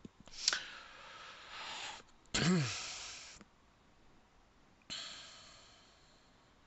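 A man breathing close to the microphone: a sharp exhale, then a short voiced sigh falling in pitch, then another breath starting suddenly about five seconds in and fading away.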